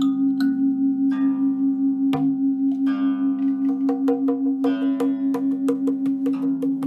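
A singing bowl hums on one steady low note with a slow pulsing waver, while guqin strings are plucked over it: several notes struck and left ringing, with small clicks of fingers on the strings.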